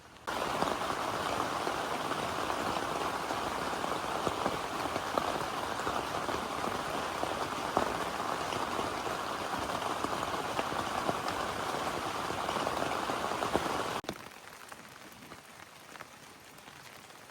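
Heavy rain falling and pattering on a surface, a dense even hiss full of small drop ticks. It cuts in suddenly at the start and drops off abruptly about 14 seconds in to a much lighter, quieter patter.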